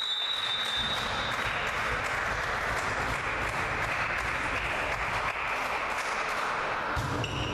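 Spectators clapping steadily in a sports hall, with a high whistle tone over the first second or so.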